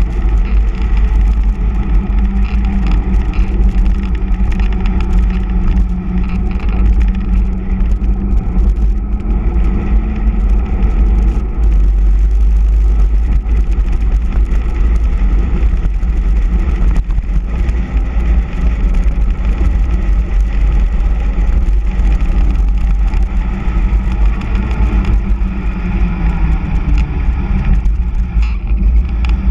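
Wind rushing over the camera microphone on a fast bicycle descent, mixed with the steady hum of the mountain bike's all-terrain tyres rolling on asphalt, pumped to over 3 bar. The tyre hum falls in pitch near the end as the bike slows for a hairpin.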